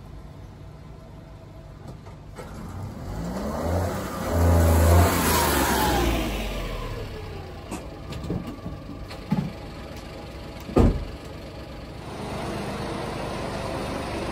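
A small vehicle drives past, its engine note rising then falling, loudest about five seconds in. A few knocks follow, with a sharp thump near eleven seconds, and from about twelve seconds a steady engine idle.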